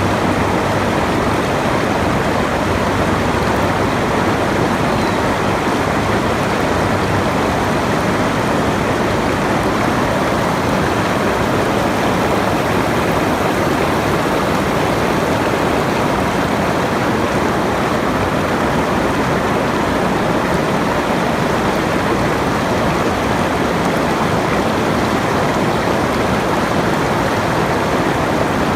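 Steady, unbroken rush of running water, like a stream.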